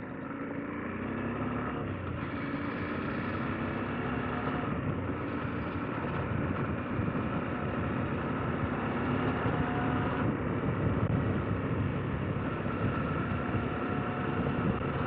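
KTM 890 Adventure R's parallel-twin engine running under way on a dirt road, mixed with wind and tyre noise. It gets a little louder over the first couple of seconds, then holds steady with small changes in pitch.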